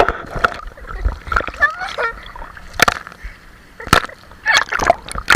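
Swimming-pool water splashing and sloshing unevenly, with two sharp knocks about three and four seconds in, and a burst of heavier splashing near the end.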